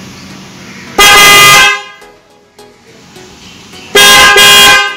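A pair of newly installed windtone electric horns on a motorcycle sound two loud blasts, each under a second, about three seconds apart. This is the first test after wiring, and the horns are working.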